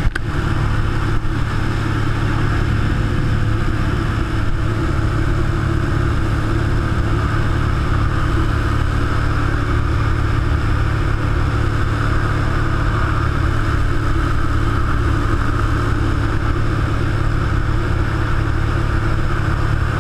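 Cessna 182 single-engine piston plane's engine and propeller droning steadily, heard from inside the cabin.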